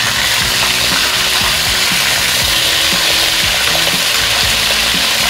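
Pork steaks sizzling steadily as they fry in butter and oil in a stainless steel wok, with the pieces being turned over using a metal spatula. Background music plays underneath.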